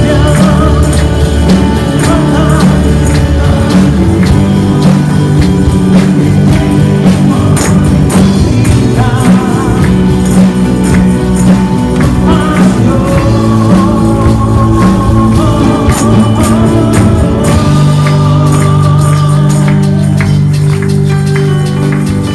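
Live church worship band playing a song, with a singer's voice over the music and tambourines jingling along to the beat.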